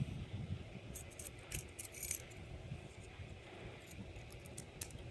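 Small metal padlock parts clicking and clinking as they are handled, a scatter of light ticks with the loudest cluster about two seconds in.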